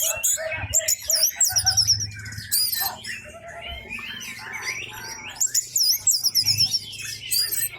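Orange-headed thrush singing loudly: a varied, unbroken song of high whistled glides mixed with fast runs of repeated sharp notes.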